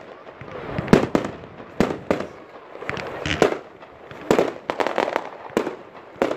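Fireworks going off: a rapid, irregular series of sharp bangs from aerial shells bursting, about a dozen in six seconds, with a steady hissing rush between the bangs.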